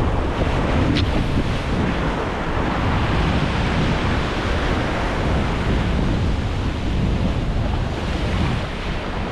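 Ocean surf surging and washing over lava rocks, with wind buffeting the microphone. There is a brief click about a second in.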